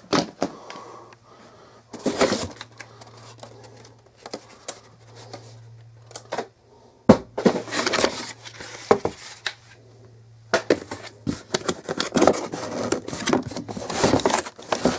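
Cardboard box inserts and plastic wrap being handled while vacuum cleaner parts are unpacked: scraping, rustling and crinkling with sharp knocks, the loudest knock about halfway through and the rustling densest near the end. A low steady hum sits underneath until about two-thirds of the way in.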